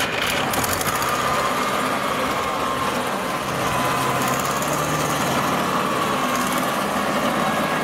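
Engine of a tracked rice-sack carrier running steadily under load as it crawls through a muddy paddy, with a steady high whine over the engine note.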